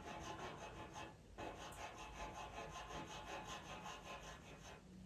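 Faint, rhythmic scratching of a drawing tool working quick short strokes over Pastelmat paper, about five strokes a second, with a brief pause about a second and a half in.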